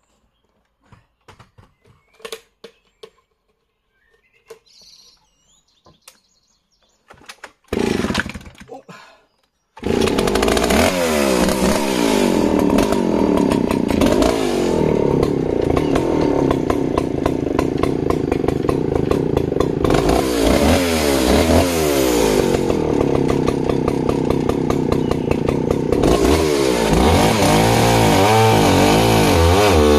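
Stihl 041AV 61cc long-stroke two-stroke chainsaw pull-started about eight seconds in, catching a couple of seconds later. It then runs loud, its pitch rising and falling as it is revved, and near the end it drops lower and wavers as the chain bites into a log.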